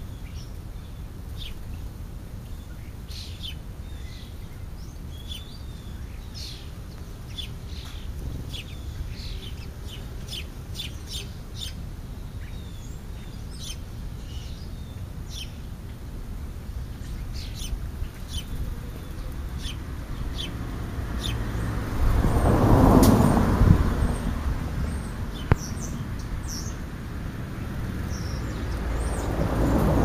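House sparrows chirping in short, repeated notes, several birds calling on and off. A low rumble swells up and fades about two-thirds of the way through, and again near the end.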